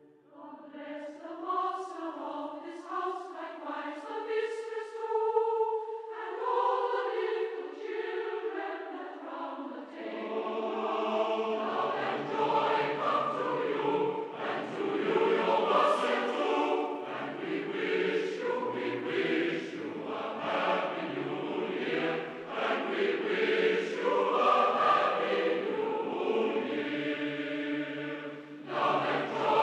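Choral singing as background music: a few voices at first, with lower voices joining about ten seconds in and the choir growing fuller.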